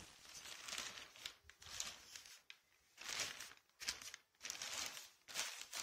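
Faint rustling and crinkling of a thin plastic bag being handled and opened, in short scattered crinkles.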